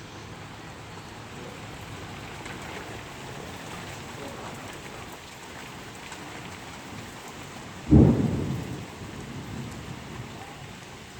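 Steady heavy rain falling. About eight seconds in, a sudden loud clap of thunder that dies away over a second or so.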